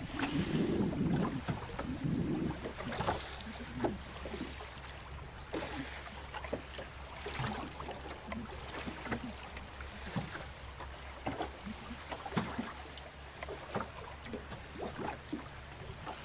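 Wind buffeting the microphone over choppy saltwater, with small waves slapping irregularly and a low steady rumble.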